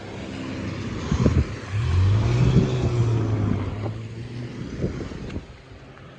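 A road vehicle passing on a wet road: tyre hiss that swells and fades over a few seconds, with a steady low engine hum at its loudest.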